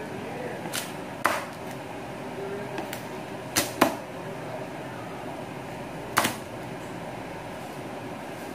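Large kitchen knife chopping through crispy air-fried pork belly onto a wooden cutting board: a handful of sharp crunching cracks, two of them close together about three and a half seconds in, over a steady background hum.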